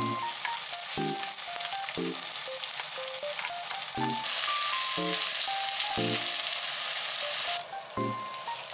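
Sliced onions frying in oil in an enamelled cast-iron pot, a steady sizzling hiss that grows louder about four seconds in as more onion is tipped in, then eases off about a second before the end. Soft background music with a note about once a second runs underneath.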